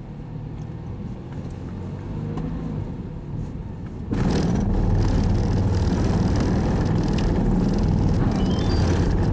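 Car driving slowly, with a steady low rumble. About four seconds in, as the car rolls up the ramp into the ferry's enclosed car deck, a much louder low rumble of the ship's running machinery sets in and holds steady.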